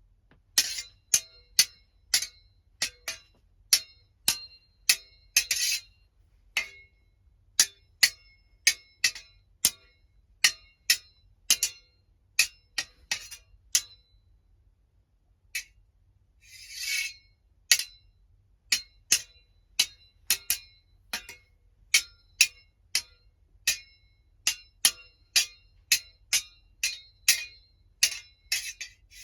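Two metal swords clashing again and again in a foley sword fight, each strike sharp and ringing, about two a second with brief pauses. A blade scrapes along the other for about a second near the middle and again at the end.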